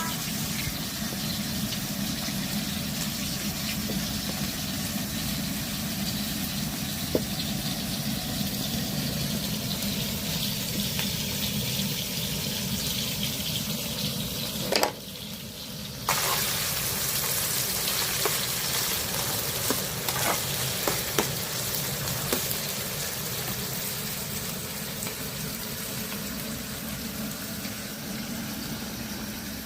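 Food frying in a pan with a steady sizzle. About halfway through it breaks off with a sharp click for about a second, then resumes with a few small ticks and pops.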